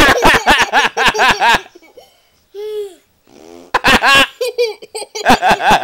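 Bouts of hearty laughter in a small child's high voice, in rapid pulses, three times, with a short high voiced note between the first two bouts.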